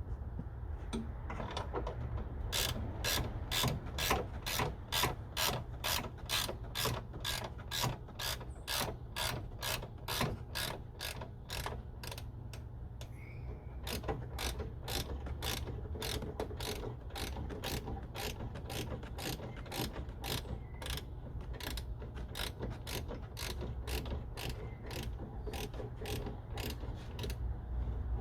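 Hand ratchet wrench clicking steadily, about three clicks a second, as a bolt is turned. The clicking starts about two and a half seconds in, over a steady low hum.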